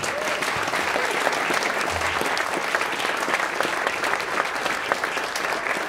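Audience applauding: many people clapping steadily, with a few voices calling out among it.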